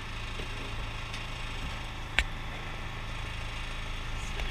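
Boat engine running at a steady low idle hum, with one sharp click a little past halfway.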